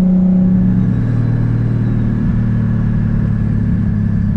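Lexus IS300's 1.5JZ inline-six engine running steadily. Its pitch drops about a second in and then holds.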